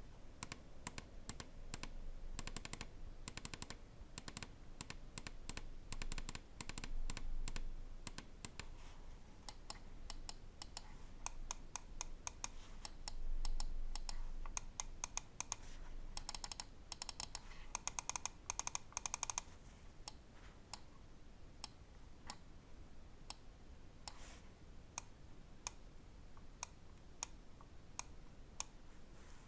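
Pulsar Xlite V3 Medium (Size 2) gaming mouse being clicked, its buttons and wheel worked in quick runs of many clicks, then single clicks at intervals after about two thirds of the way through.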